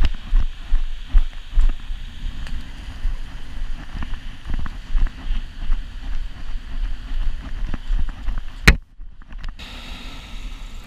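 Wind buffeting an action camera's microphone in gusts, over surf washing on the beach. A sharp click near the end is followed by a brief moment of near silence.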